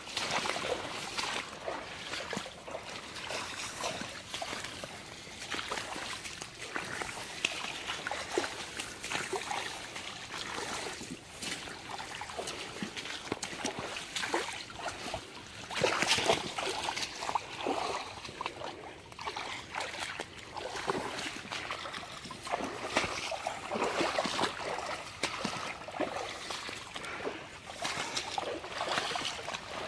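Footsteps wading and splashing through shallow floodwater, in an uneven run of sloshing strokes.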